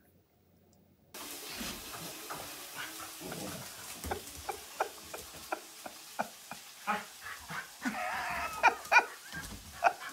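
Two dogs, a Bernese mountain dog puppy and a larger short-haired dog, moving about and playing on a tiled floor: claws clicking and scuffing, starting about a second in, with a brief high wavering dog whine near the end.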